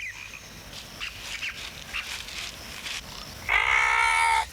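A cartoon duck character's loud, drawn-out sneeze wind-up: a held, nasal, pitched "aah" starting about three and a half seconds in and lasting about a second. Before it there are only faint short chirps.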